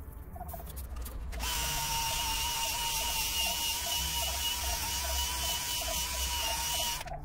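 Small electric power tool running at a steady speed, a steady whine with a faint rhythmic flutter, starting just over a second in and cutting off abruptly near the end.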